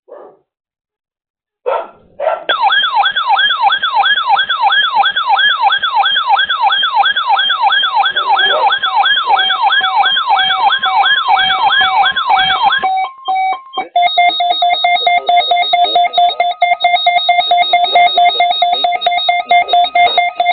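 NOAA Weather Radio warning alarm sounding on a weather radio during its weekly test. It is an electronic siren tone that sweeps up and down about two and a half times a second for about ten seconds. After a short break it changes to a steady, piercing alarm tone.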